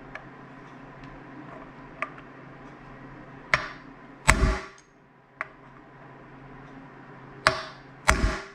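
A hammer whacking a steel punch, held in vise grips, into the center-punch marks on the steel ball-joint rivets of a control arm: a few light taps, then hard metallic blows in two pairs, one about three and a half seconds in and one near the end. The blows deepen the marks to start a drill on the rivets.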